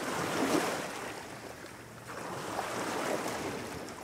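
Sea waves washing in, a rushing noise that swells and fades twice.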